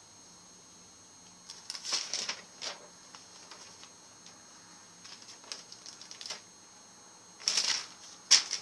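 Pages of a spiral-bound paper notebook being turned and handled: short bursts of paper rustling and clicks about two seconds in, faint ticks in the middle, and the loudest rustles near the end.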